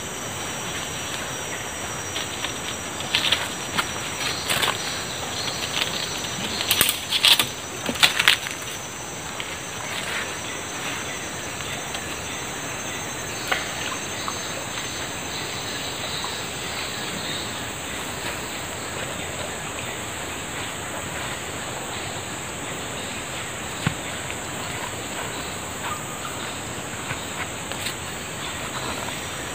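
Steady high-pitched drone of insects over the even rush of a flowing river. A cluster of short clicks and rustles comes between about three and eight seconds in, and one more click near the end.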